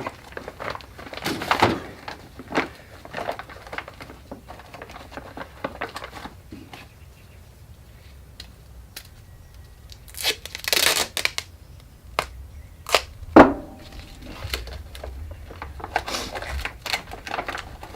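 Plastic bag rustling and crinkling in bursts as the pre-impregnated glass-fibre repair material is put back into it, with one sharp knock about thirteen seconds in.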